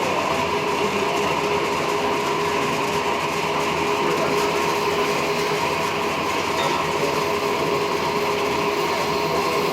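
Railway train running along the line: a steady rolling rumble with a constant hum, no break or change in it.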